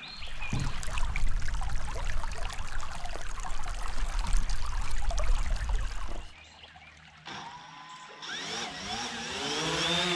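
A rushing noise with a heavy low rumble for about six seconds, then after a cut a quadcopter drone's motors spin up, a whine rising in pitch that settles into a steady hum near the end.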